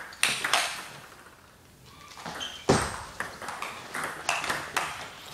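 Table tennis rally: the celluloid ball clicking off rubber-faced paddles and bouncing on the table in quick sharp ticks. A first run of clicks, a lull of about a second, then a second run with one heavier knock about halfway through, the loudest sound.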